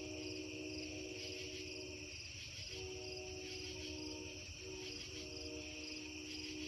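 A chorus of crickets chirring steadily, with a faint low hum of several steady tones underneath that drops out briefly twice.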